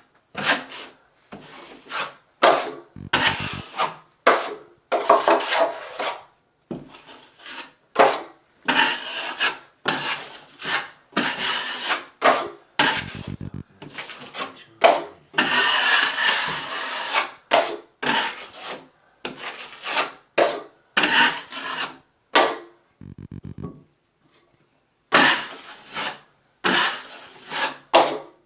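Drywall knife scraping as 5-minute setting joint compound is spread over mesh on a wall: a run of separate rasping strokes, roughly one a second, with short breaks between them.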